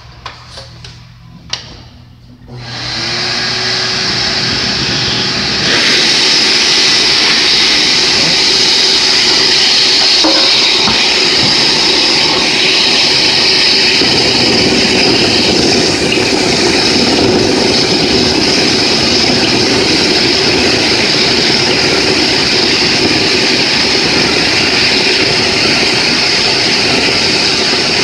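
A few light knocks, then a shop vacuum starts up about two and a half seconds in and runs steadily, its hose held to the back of a plastic taillight housing to suck away drilling shavings; the noise grows louder about six seconds in.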